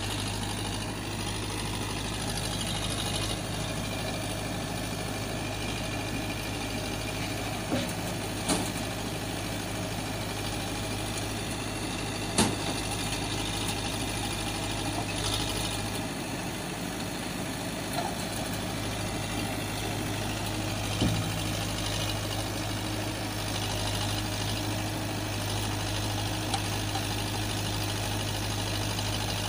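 A steady, idling engine-like drone, with a few sharp clicks and knocks scattered through it.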